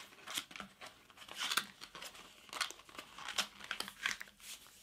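Folded sheet of printer paper being handled and creased: a series of short, irregular crinkling rustles as flaps are tucked under and the layers pressed flat.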